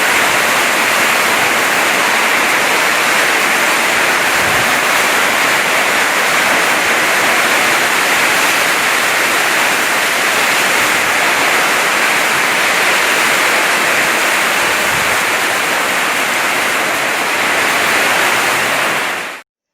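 Heavy rain falling hard, a loud, steady hiss of downpour that cuts off abruptly near the end.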